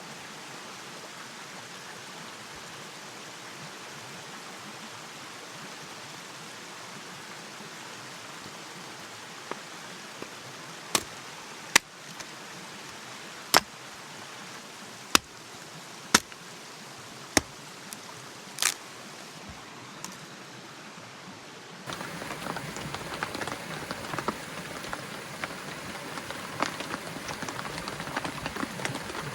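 Steady rain hiss, with a series of sharp knocks spaced about a second or more apart in the middle. Near the end it changes suddenly to a louder hiss full of small crackles.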